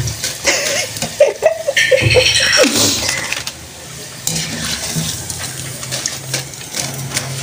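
Hot oil sizzling in a karahi as besan-coated potato fries are lifted out with a wire skimmer, with light clinks of metal on the pan.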